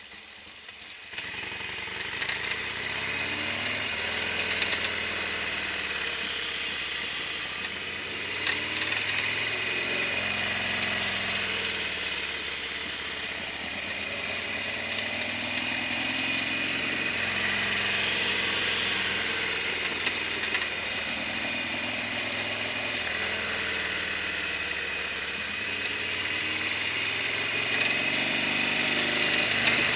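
Harley-Davidson Sportster XL1200R's 1200 cc V-twin engine running, getting louder about a second in, then its pitch rising and falling again and again.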